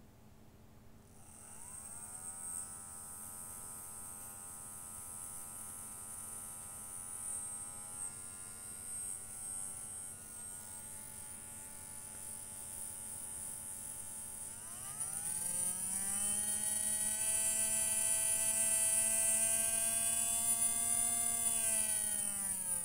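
Small brushed DC motor spinning on a variable bench supply, whining in a pitch that climbs as the voltage is turned up. It steps up to a higher, louder whine about two-thirds of the way in, and the pitch starts to drop near the end as the voltage is turned back down.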